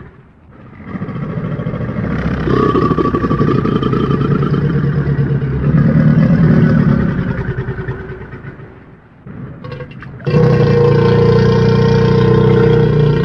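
Deep, rumbling creature growls made as sound effects for Purussaurus, a prehistoric giant caiman. One long growl is followed by a short quiet gap, then a second, louder long growl about ten seconds in.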